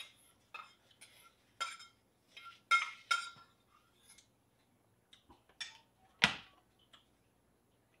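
Metal spoon clinking and scraping against a stainless steel rice bowl as the last rice is scooped out: a string of separate sharp clinks with short ringing, the loudest about six seconds in.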